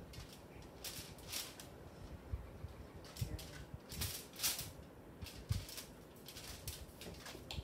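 Plastic squeeze bottle of dressing being squeezed over a sandwich, sputtering out in several short, hissing spurts of air and sauce.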